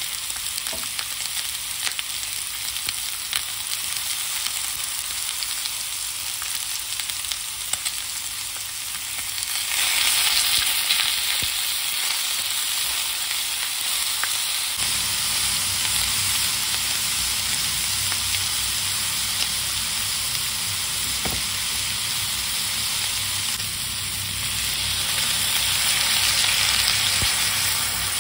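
Pork pieces sizzling skin side down in a hot frying pan as the skin sears. The sizzle grows louder about ten seconds in, and a low hum joins partway through.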